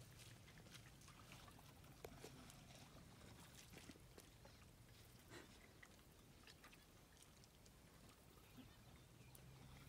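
Near silence: a faint steady low hum with a few scattered small clicks.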